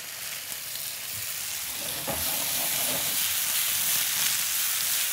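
Steady sizzling of food frying in hot pans, as butter melts in one pan and chicken sears on high heat in another. The sizzle gets a little louder about two seconds in.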